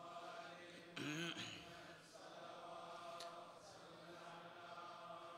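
Faint steady humming drone made of several held tones, with a brief voice-like sound about a second in.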